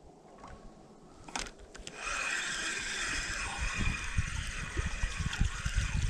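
Spinning reel being cranked to reel in a hooked fish. About two seconds in, the reel starts up and keeps up a steady grinding whir. There are low thumps under it.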